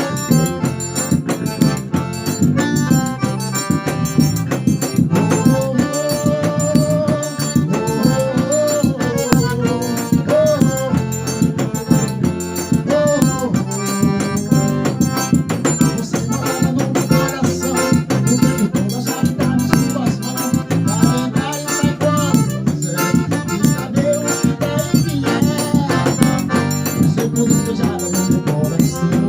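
Forró music playing: a steady, busy percussion beat with shaker or rattle under a pitched melody.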